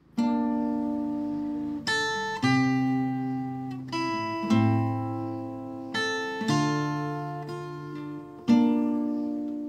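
Acoustic guitar strumming chords and letting each ring out. A new chord is struck about every two seconds, several of them with a quick extra strum just before: the instrumental opening of a song, before the voice comes in.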